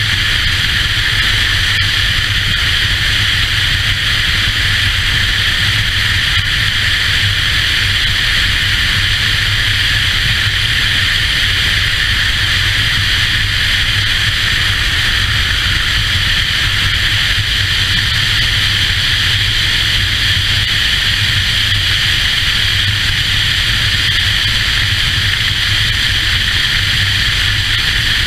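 Steady wind rush over the camera microphone of a touring motorcycle cruising at road speed, with the engine's low steady drone underneath.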